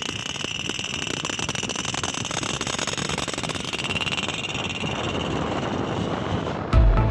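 Road noise heard from a moving motorcycle: engine, tyres and wind as a steady rushing hiss with a thin high whine. Music with a heavy bass cuts in near the end.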